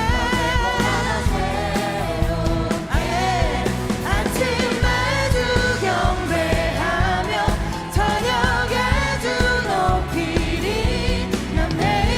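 Korean contemporary Christian worship music: a praise team singing a worship song over a full band accompaniment with drums.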